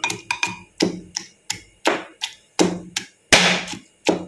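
A pestle pounding tomato into a coarse paste of garlic, onion, green chilli, cumin and pepper in a mortar. It makes a quick run of thuds, about three a second, and the loudest comes about three seconds in.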